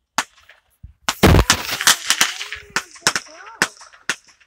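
Fireworks going off: a single bang, then a rapid string of sharp bangs and crackles about a second in, the loudest and deepest among them, followed by a few separate cracks spaced through the rest.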